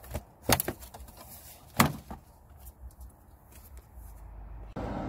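Plastic engine cover being pulled off its mounting posts on a 2013 Hyundai Elantra: a few sharp plastic knocks and pops, the loudest a little under two seconds in.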